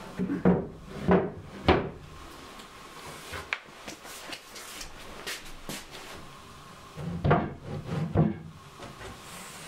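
Wooden knocks and bumps from old cabinet doors and panels being handled and set down, a few in quick succession near the start and again about seven seconds in.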